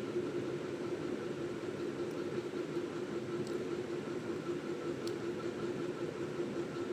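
Steady hum and hiss of a running motor, with a held low tone and a fainter higher one that do not change. A few faint ticks sound over it.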